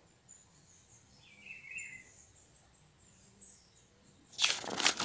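Mostly quiet, with a faint short chirp about a second and a half in; then, near the end, a loud crinkling rustle of a paper owner's manual being handled and turned.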